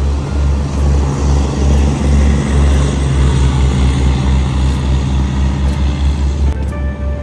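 Chao Phraya river boat's engine running with a steady low rumble, under a rushing wash of water and wind that swells in the middle.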